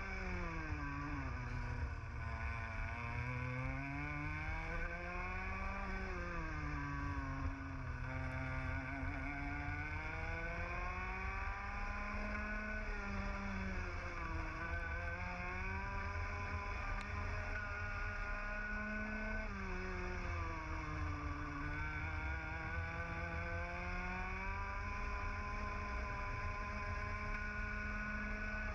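Two-stroke TAG kart engine at racing speed, heard onboard the kart: its pitch climbs as it pulls down each straight and drops back as the driver lifts and brakes for the corners, over and over, with a steady rumble of wind and vibration underneath.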